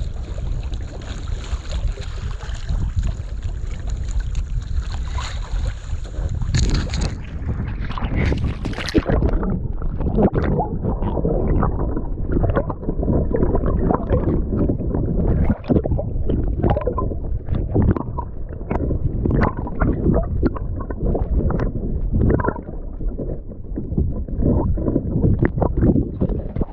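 Water sloshing and gurgling against a kayak-mounted camera, with wind on the microphone. About seven seconds in it turns to dense, muffled gurgling full of small splashes and clicks as the camera dips below the surface.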